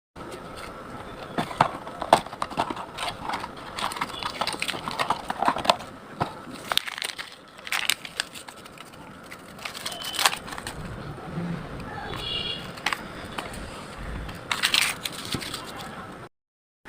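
Ingredients being crushed and chopped by hand in a kitchen: a run of irregular knocks and crunches, with a brief ringing note about twelve seconds in.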